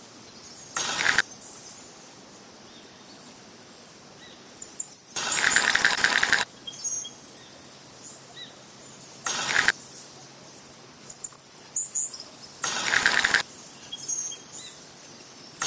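Faint bird chirps in the background, broken four times by short loud bursts of noise lasting from under half a second to over a second.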